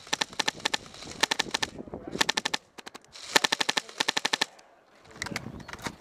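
HPA-powered airsoft light machine gun (a PolarStar Jack–engined Classic Army Stoner) firing full-auto in short bursts of rapid sharp cracks, about six bursts with brief pauses between them, the longest about a second long near the middle.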